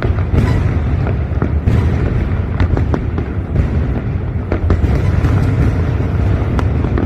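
Fireworks going off in quick succession: many sharp bangs and crackles over a continuous low rumble.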